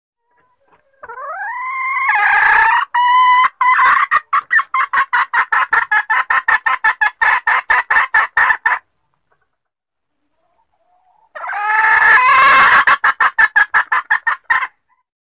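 Red junglefowl hen calling: a squawk that rises in pitch and runs straight into a fast series of clucks, about four a second, then after a pause a second squawk and run of clucks. It is a hen's call to a cock, used as a lure call for wild junglefowl.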